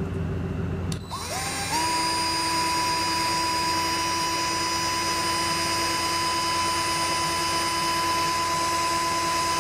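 Handheld power drill spinning up with a rising whine about a second in, then running at a steady speed as its bit bores into a hard, ABS-like resin 3D-printed bust.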